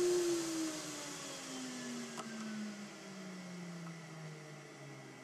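Vacuum table's pump switched off and winding down: its whine slides steadily lower in pitch and fades as the motor coasts to a stop, meaning the vacuum hold on the workpiece is being released. A light click sounds about two seconds in.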